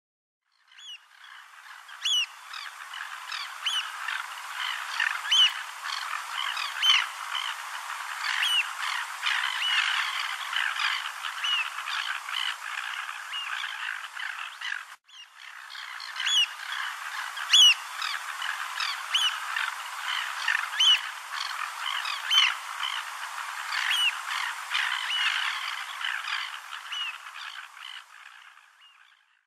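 African oystercatchers calling: many short, sharp piping calls, some louder than the rest, over the steady hiss of surf. The sound fades in and out and breaks off for a moment halfway through.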